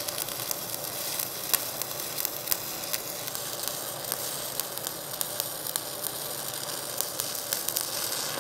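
Stick-welding arc on 90-10 copper-nickel, a 1/8-inch electrode burning at 100 amps: a steady crackling sizzle with frequent sharp pops. It stops suddenly at the very end.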